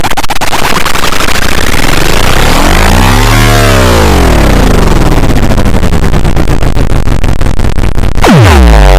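Loud, distorted electronic sound effect with a buzzing tone that swoops in pitch. It pulses rapidly at first, rises to a peak and falls again about three and a half seconds in, then switches abruptly about eight seconds in to a deep swoop that falls and rises.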